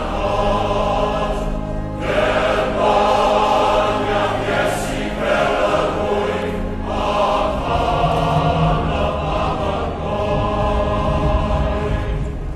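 Background music: a choir singing long, sustained chant-like phrases over a steady low bass, with short breaths between phrases about two seconds in and again around six and a half seconds.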